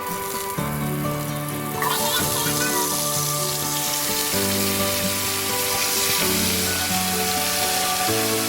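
Fish frying in hot oil: a steady sizzle that grows loud about two seconds in, over background music with held notes.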